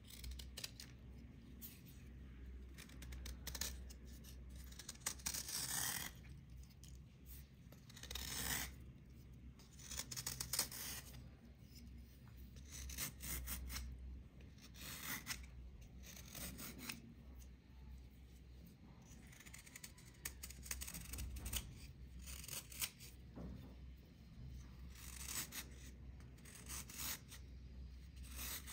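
A serrated metal blade scraping a soft, crumbly red block in repeated strokes: a scratchy rasp every couple of seconds as shavings peel away.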